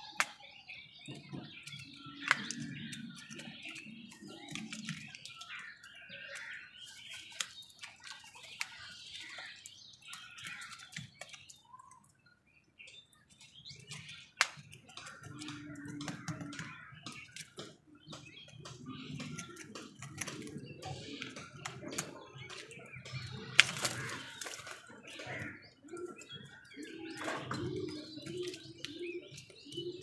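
House crows feeding from a plastic bowl: scattered sharp knocks of beaks striking the bowl, wing flaps and bird chirps, the loudest knock about two thirds of the way through.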